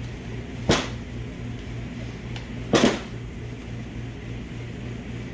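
Steel and friction clutch plates from a 6L80 automatic transmission's low-reverse clutch pack clattering as they are pulled out and set down, two short metallic clanks about two seconds apart. A steady low hum runs underneath.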